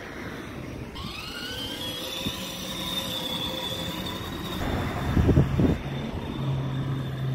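An electric motor whine that rises in pitch about a second in and then holds steady, over road noise, with a brief loud low rumble around five seconds in and a low steady hum near the end.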